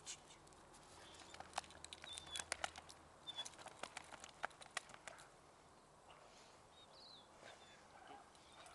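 Faint scattered taps and thuds of a dog bounding and a person stepping on a grass lawn during play, thickest in the first half, with a few short high bird chirps.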